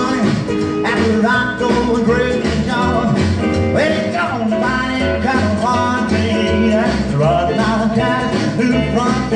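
Music from a 45 rpm record playing on a vintage console record player, heard through its built-in speaker: a band song with guitar in an old rock-and-roll style.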